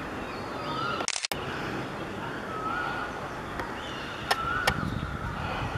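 Steady distant rumble of an Airbus A320-232's IAE V2500 jet engines on approach, with a bird giving a short repeated call about every two seconds. The sound cuts out briefly about a second in, and two sharp clicks come close together past the middle.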